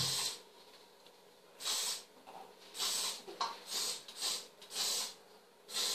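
Aerosol hairspray sprayed in a series of short hissing bursts, about seven of them, irregularly spaced.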